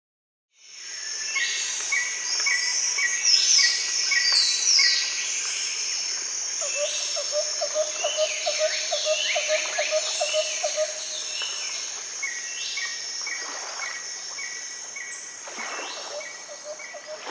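Nature ambience of many birds chirping over a steady high whirr of insects, starting about half a second in. A lower, rapid pulsing trill joins from about six to eleven seconds in.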